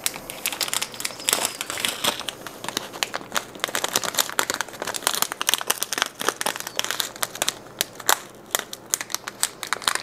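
Small clear plastic bag of an M.2 SSD screw kit crinkling as it is handled and rummaged through: a dense, irregular run of crackles.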